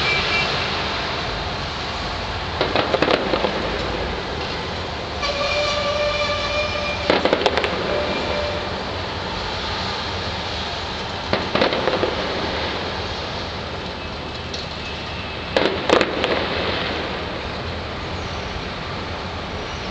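Fireworks going off in four short crackling volleys about four seconds apart, over a steady background of noise. Between the first two volleys a steady tone is held for about two seconds.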